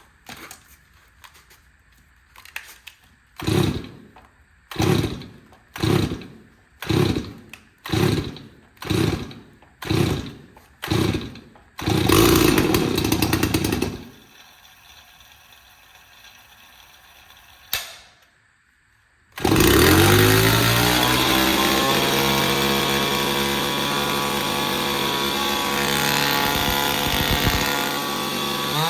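Stihl 024 two-stroke chainsaw being pull-started: about eight pulls of the starter rope, roughly one a second, then the engine fires for about two seconds and dies. After a pause it starts and keeps running, its revs rising as it catches and then holding steady.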